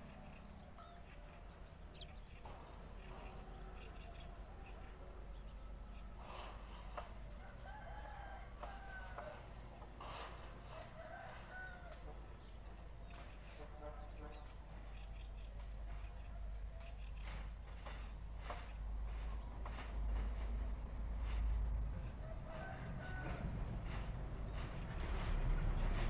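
Faint bird calls in the distance, a few wavering calls in a row and another short run near the end, over a steady high hum. A low rumble swells about two-thirds through and again at the very end.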